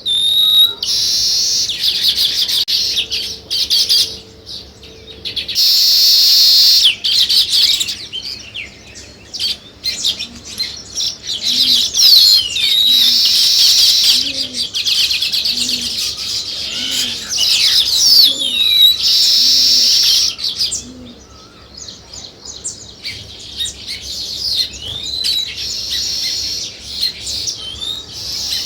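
A flock of sparrows chirping continuously in a busy, overlapping chorus of short high chirps, broken three times by a louder, harsh chattering stretch. A faint low note repeats about once a second midway.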